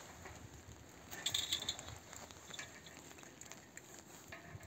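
Hand secateurs clicking and snipping through grapevine canes, with the rasp of the canes being handled on the trellis wires; the loudest cut comes a little over a second in, followed by scattered small clicks.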